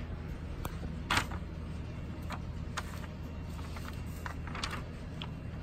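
Large sheets of blueprint paper rustling and crinkling as they are turned and handled, several short crinkles with the loudest about a second in, over a steady low hum.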